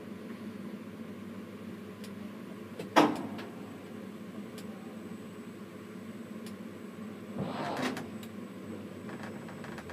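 Steady machinery hum from a tower crane, heard from up in the crane. A single sharp knock about three seconds in, and a short rustling hiss a little before the eight-second mark.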